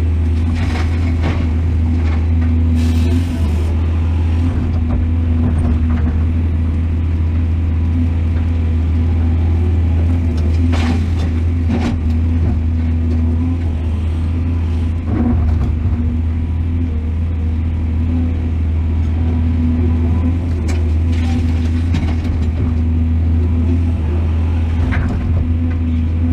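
Large excavator's diesel engine running steadily with a deep drone. Now and then there are sharp knocks and clanks, the sort a bucket or rock makes striking metal.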